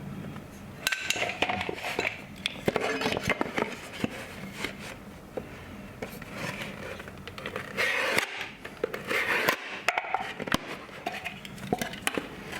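A piece of drywall being cut and handled by hand: irregular scraping strokes with sharp clicks and taps.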